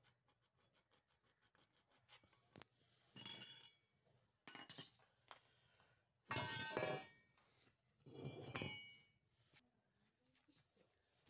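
Steel parts of a homemade welded bench vise clinking and scraping as its screw handle and sliding jaw are worked. A few light ticks come first, then several short metallic scrapes and clinks, some of them ringing briefly.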